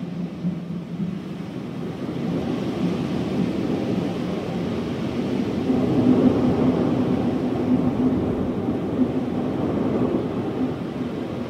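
A steady low rumble with a faint hum, growing louder about two seconds in and swelling most around six seconds in.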